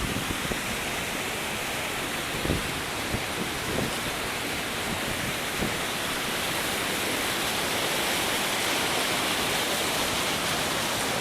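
Waterfall in spate rushing in a steady roar of white water, slightly louder in the second half. A few faint knocks in the first half.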